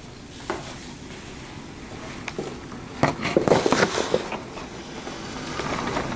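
Horizontal window blinds clattering as they are pulled out of the way, a burst of rattling slats about three seconds in after a couple of single clicks. Hurricane wind and rain outside rise toward the end.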